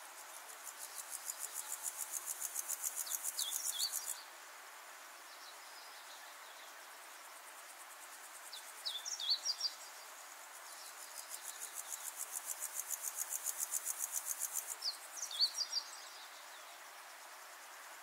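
Outdoor nature-sound recording: an insect's high pulsed trill, about seven pulses a second, swells over about four seconds and stops, then comes again later. Small birds give short chirps three times.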